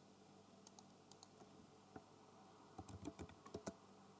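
Faint computer keyboard typing: a few single clicks in the first second or so, then a quick run of keystrokes about three seconds in as a short command is entered.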